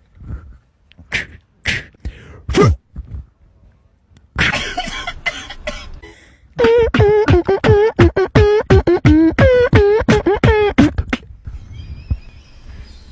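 Prank sound effects with a beatbox-like, mouth-made character: a few sharp percussive pops, a burst of hiss, then a fast run of about a dozen short pitched blips that bend in pitch.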